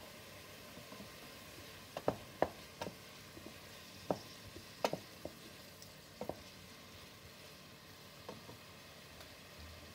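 Diced onions sizzling in oil in a stainless steel pan, with a wooden spoon stirring them and knocking against the pan several times between about two and six seconds in.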